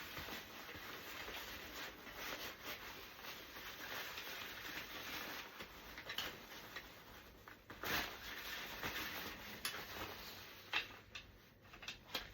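Rustling and handling noise from Pack 'n Play playard parts being fitted together, with a few sharper knocks in the second half.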